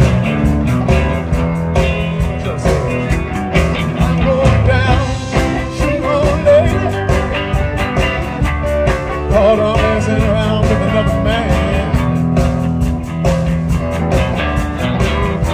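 Live blues band playing an instrumental passage: electric guitar lead with bent, wavering notes over a steady drumbeat and bass.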